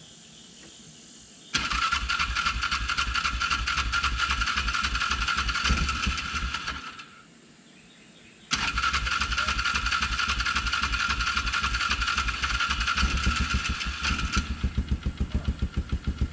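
Polaris Ranger utility vehicle's engine turned over on the starter for about five seconds without catching, then cranked again for about six seconds. Near the end it catches and settles into an idle with a steady, even pulse.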